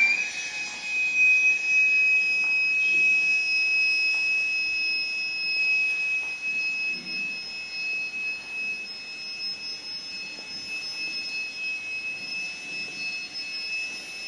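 A high whistling tone holds steady at one pitch after a quick upward glide, slowly fading.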